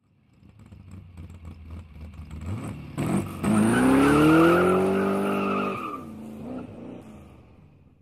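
Car engine sound effect: a low rumble builds, then about three seconds in an engine revs up with a rising pitch that levels off, holds, and fades away near the end.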